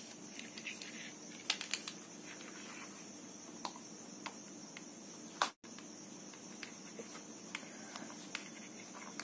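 Faint, scattered clicks and light rustling as small metal fittings set through a stiff fabric panel are bent flat by hand, with one louder click about halfway through, over a steady faint room hum.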